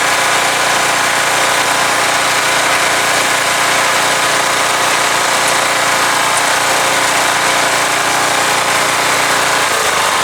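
Small single-cylinder lawnmower engine running steadily, its cracked crankcase leaking oil.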